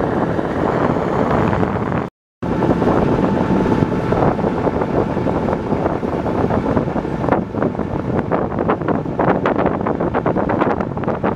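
Wind buffeting the microphone and water rushing past a motorboat under way, with the boat's motor running underneath. The sound drops out completely for a moment about two seconds in. From about seven seconds in, a run of sharp slaps and taps joins it.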